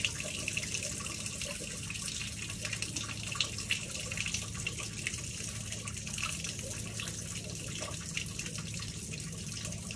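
A steady stream of water pouring and splashing beneath a D300 marine gearbox over a low steady machinery hum. The water is leaking through a burst part, the leak that let water into the gearbox oil and turned it white.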